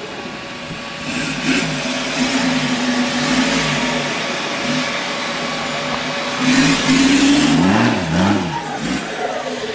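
Engine of a modified off-road 4x4 revving under load, its pitch rising and falling with the throttle; revs held high for about a second past the middle, then a few quick throttle blips.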